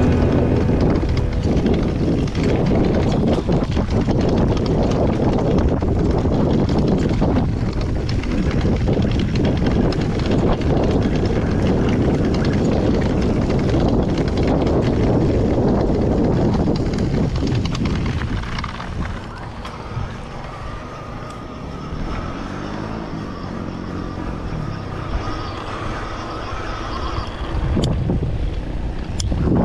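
Mountain bike rattling and clattering over a rocky dirt track, with wind rushing over the microphone. After about 18 seconds it turns quieter as the ride moves onto smoother ground.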